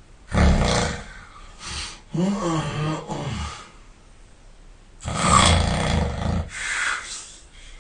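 A person snoring heavily: two loud snores on the in-breath, about five seconds apart, each followed by a shorter breath out. The first breath out is drawn out with a groaning, voice-like tone.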